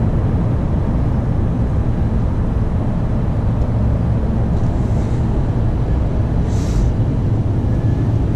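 Scania P280 truck's diesel engine running steadily at cruise, heard inside the cab along with road and tyre noise, with a brief hiss about six and a half seconds in.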